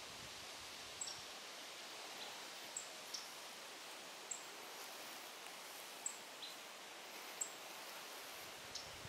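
American robins giving short, high, thin alarm calls, about one a second, some very high and others a little lower, over a faint steady outdoor background. The calls are alarm at a great gray owl perched in their territory.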